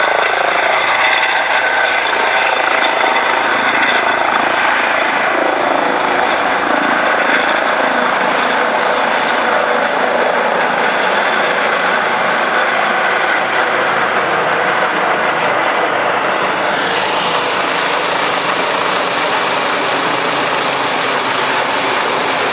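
Medical trauma helicopter's turbine engines and rotor running loud and steady as it lifts off, with a thin high turbine whine over the rotor noise.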